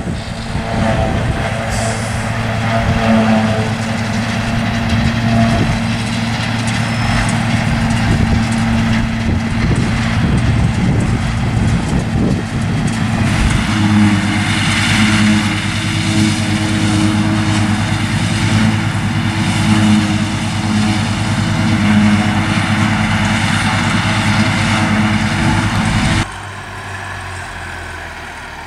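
Fortschritt E 281C self-propelled forage harvester at work, its diesel engine running steadily under load while it chops grass and blows it into a trailer, with a Zetor tractor running alongside. About 26 seconds in the sound drops suddenly to a much quieter engine far off.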